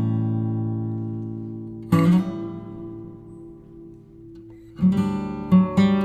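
Background music on acoustic guitar: chords struck and left ringing, fading away between strikes, with quicker plucked notes near the end.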